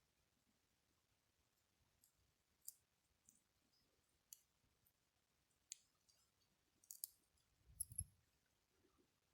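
Faint, scattered small clicks of tools and small parts being handled while a smartwatch is worked on by hand, with a soft low bump near the end.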